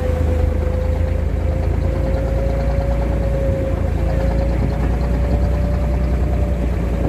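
An engine running steadily: a low rumble with a steady whine that drifts slightly up and down in pitch.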